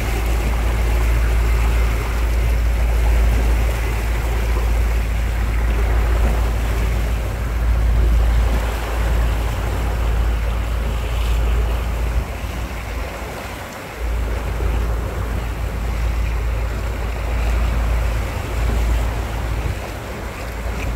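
Boat's wake and the sea rushing past astern as a fishing boat runs under way, over a steady deep rumble that dips briefly a little past halfway.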